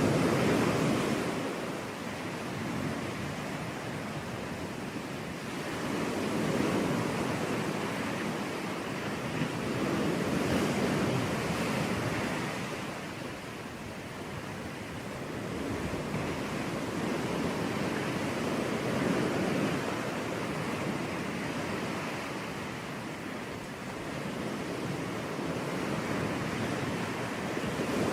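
Sea waves breaking and washing up a beach: a steady rush of surf that swells and falls back every several seconds.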